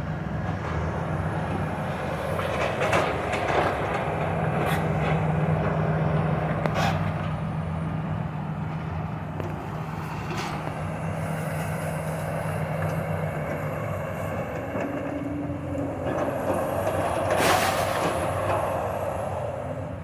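Heavy diesel demolition machinery running steadily, with scattered crashes and clanks of debris breaking and falling, and a louder crash near the end.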